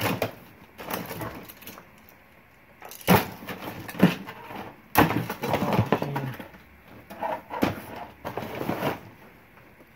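Things being handled and moved about in a box of odds and ends: rustling with several sharp knocks, about 3, 4 and 5 seconds in.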